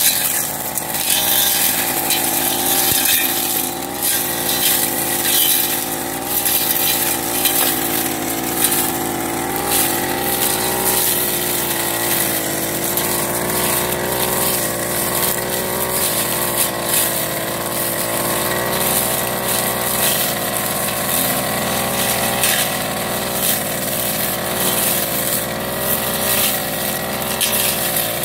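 Backpack brush cutter's engine running steadily while cutting tall cogon grass, its pitch wavering a little under the changing load, with frequent short crackles as the cutting head hits the stalks.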